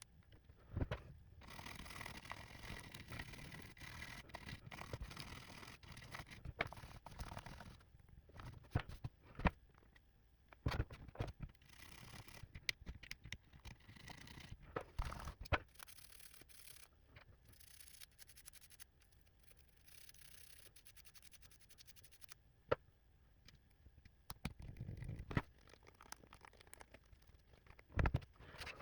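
Brush scrubbing over the butterfly keys of a MacBook 12-inch keyboard to clean out sticky, stuck keys: a scratchy bristle scraping with scattered sharp clicks and taps. After about the first half it turns sparser, with a few separate knocks.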